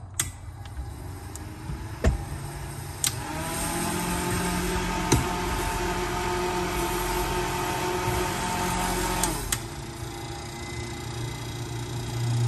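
A small motor runs with a steady whir for about six seconds, starting a few seconds in and stopping near the end, over a low rumble. There are a few sharp clicks along the way.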